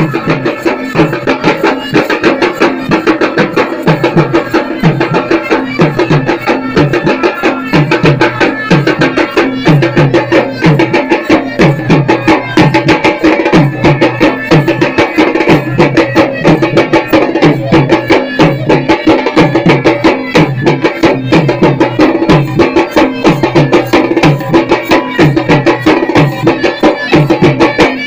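Khalu baja folk band playing: several barrel drums beaten fast with sticks, a deep beat coming about once a second under the rapid strokes, with a steady melody line over the drumming.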